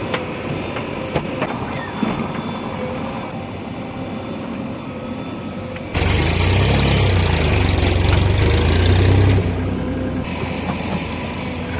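Heavy diesel engine of a backhoe loader or tractor: a low engine sound with a few clicks, then about halfway in the engine comes in suddenly much louder, as if starting, and runs on steadily.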